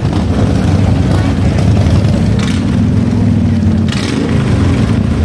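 Several motorcycles riding slowly past, their engines making a continuous low, pulsing rumble.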